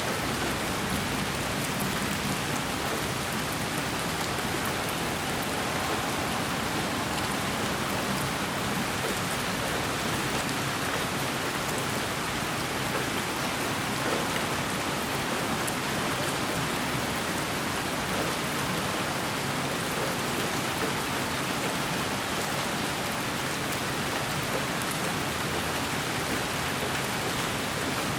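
Steady white noise played as a sleep sound for a baby: an even, unbroken hiss that does not change.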